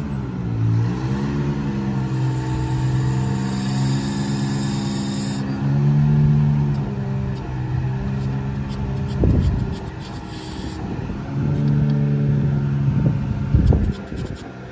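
Bucket truck engine running to power the boom hydraulics, its pitch dipping and rising as the boom moves. A few knocks sound near the end.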